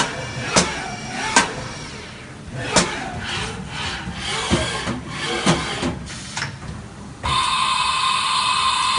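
Haas VF-2SS vertical machining center running a program with nothing on the table, at about half feed rate. The axis drives whine, rising and falling in pitch as the table and head start and stop, with sharp clicks and clunks between moves. About seven seconds in, a steady high whine sets in again.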